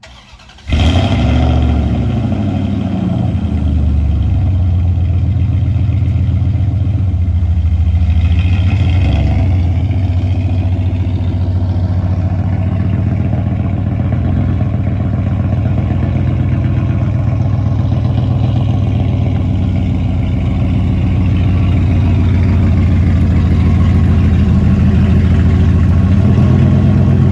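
Pickup truck engine running at idle, steady and loud, close to the microphone.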